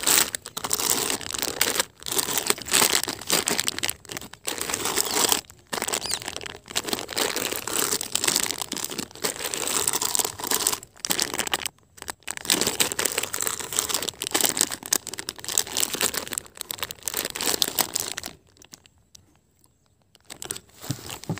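Plastic packets and newspaper packing crinkling and rustling as they are handled and pulled from a cardboard box, in irregular bursts with brief pauses and a near-silent gap near the end.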